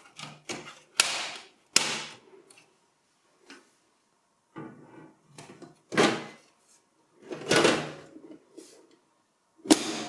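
Plastic front bezel snapping onto the steel chassis of an HP ProDesk 600 G2 small-form-factor desktop, then the metal cover going on and latching shut. It is heard as a series of separate sharp clicks, clacks and clunks with short gaps between them; one of the loudest comes near the end.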